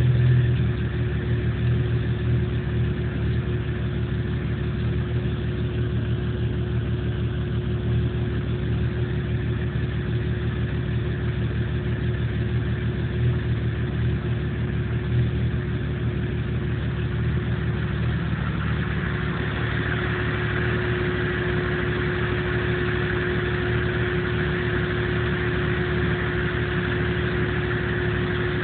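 1997 Jeep Cherokee engine idling roughly, with a steady whine that grows louder about two-thirds of the way in. The rough idle sets no trouble codes or check-engine light.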